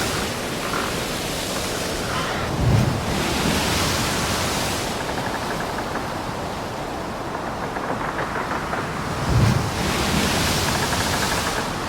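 Steady rushing wind noise over the microphone, with two low buffeting gusts, about three seconds in and again near nine seconds.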